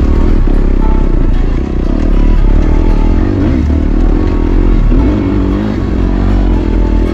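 Dirt bike engine running hard under riding, revving up and down with its pitch rising and falling.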